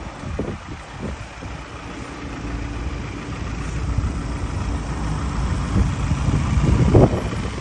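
Ford Transit Custom van's engine idling steadily, growing a little louder toward the end, with wind gusting on the microphone.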